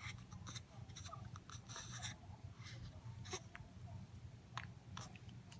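Newborn baby hiccuping: several faint, short, sharp hics spaced a second or so apart, the clearest about three seconds in, over a steady low hum.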